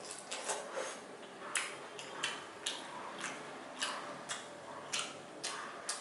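A person chewing a mouthful of chicken curry with the mouth open, making wet smacking clicks about twice a second.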